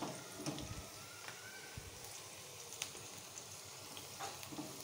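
Sliced onions frying in oil in a wok: a faint steady sizzle with scattered crackles, while a silicone spatula stirs them.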